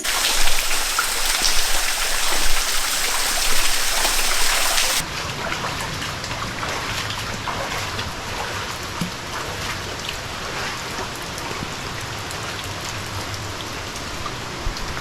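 Steady rushing white noise of a waterfall. About five seconds in the sound changes abruptly to a duller, deeper rush.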